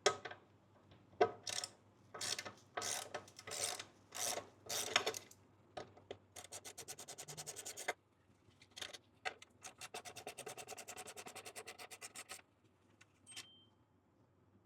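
Hand ratchet with a T30 Torx bit loosening the screws that hold a motorcycle's skid plate. A series of short scraping strokes is followed by two runs of quick, even clicks as the ratchet spins back.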